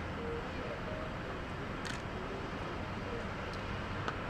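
Airbus A320-214's CFM56 jet engines idling as the airliner taxis onto the runway, a steady rushing noise. A couple of sharp clicks come about two and four seconds in.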